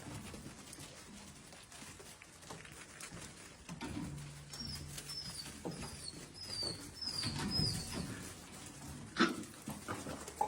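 A mother dog and her puppies moving about and feeding, with a run of six short, high, falling squeaks in the middle and a sharp knock near the end.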